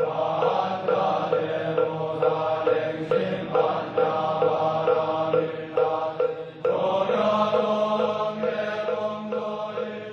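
Background music with chords repeated at a quick, even pulse, moving to a new, fuller chord about two-thirds of the way through.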